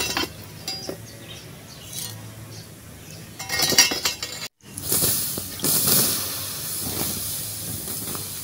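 Lumps of burning charcoal clinking and scraping as a flat metal scoop digs them out of a charcoal stove to lower the heat. About halfway through, a hissing noise takes over.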